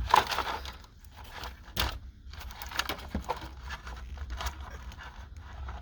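Wires and a plastic harness connector handled by hand: irregular rustling with small clicks, and a sharper click just under two seconds in.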